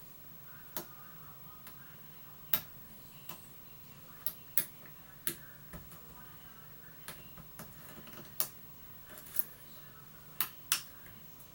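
Irregular sharp clicks and ticks of a steel hook pick working the pins of a pin tumbler challenge lock held under tension, about a dozen in the space of ten seconds.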